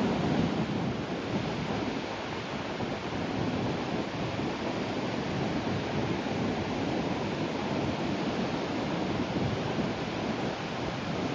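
Sea waves breaking gently on a shore, a steady rushing surf that is loudest at the start and eases slightly after a second or two.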